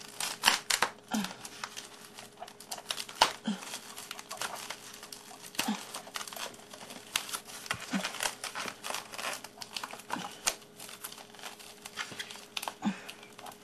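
Plastic wrapping crinkling and crackling as it is handled and cut with scissors around a model locomotive, with many short sharp clicks.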